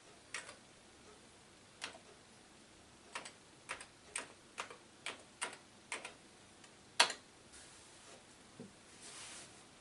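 Keys being typed one at a time on the Amiga A500's keyboard: about ten separate clicks at uneven intervals, with one harder keystroke about seven seconds in. A faint soft rustle follows near the end.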